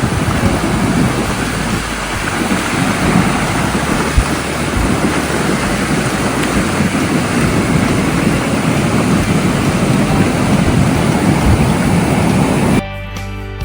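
Ocean surf washing onto a sandy beach, with wind rumbling on the microphone. It cuts off abruptly near the end.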